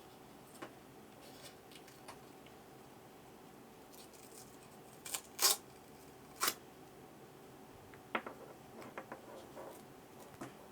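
A few sharp clicks and short scrapes of small hard parts and tools being handled during hands-on work on the scooter's dashboard. The two loudest come about five and a half and six and a half seconds in, followed by a cluster of lighter ticks near the end.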